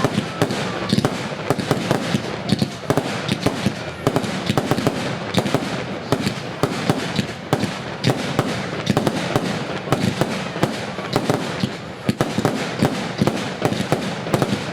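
Jorge 'Illuminati' firework going off in a continuous rapid series of shots and bangs, several a second, with no let-up.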